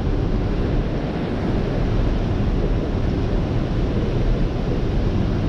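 Steady rush of white water churning below a dam, with a low rumble underneath.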